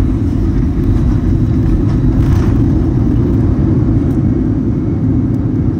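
Airliner's jet engines in reverse thrust on the landing rollout: a loud, steady, low rumble.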